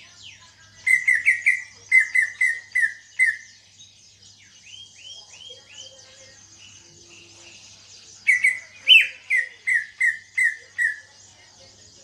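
Greater green leafbird (cucak ijo) singing: two loud runs of about eight quick, down-slurred whistled notes, about three a second, the first starting a second in and the second near the end, with softer sweeping notes between them. The bird is newly out of moult and has begun to sing out in full.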